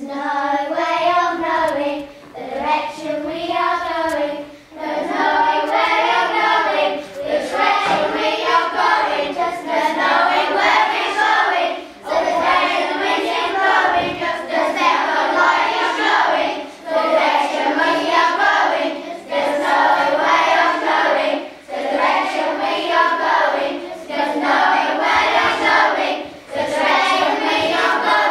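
A group of children singing a melody together, in phrases of about two seconds with short breaks between them.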